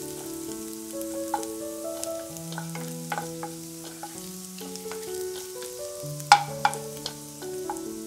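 Chopped garlic and ginger sizzling in hot oil in a nonstick pan, stirred with a wooden spatula that clicks and scrapes against the pan, with two sharp knocks about six and a half seconds in. Soft background music with held notes plays underneath.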